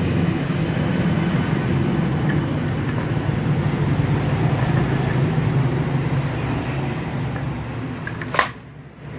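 A steady low rumble like a motor vehicle engine or road traffic running close by. Near the end a sharp click, after which the rumble suddenly drops away.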